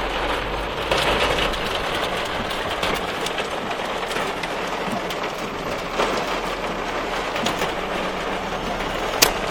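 Heavy rain pouring down in a steady hiss, with one sharp click near the end.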